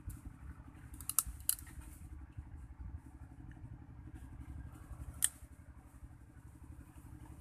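A few sharp cracks of grilled crab shell being broken apart by hand, about a second in and again past the middle, over a steady low rumble.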